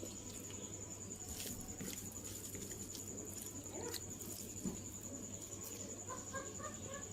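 Close chewing and mouth sounds of a person eating, with a few sharp crunches. Several short bird calls come near the end.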